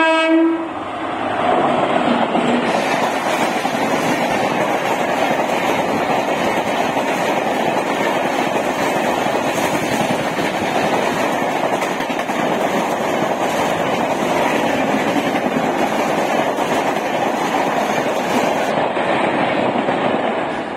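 WAP-7 electric locomotive's horn cutting off about half a second in, then the express's LHB coaches rushing past at speed: a steady, loud rush of wheels on rail and moving air.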